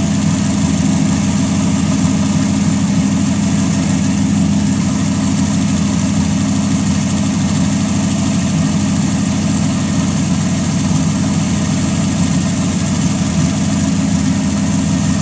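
320 cubic-inch Buick straight-eight racing engine running steadily at idle, an even, unchanging note.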